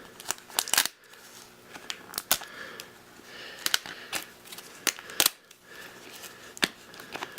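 Hands struggling to open a small plastic toy egg: scattered light clicks and snaps of plastic being pried and handled.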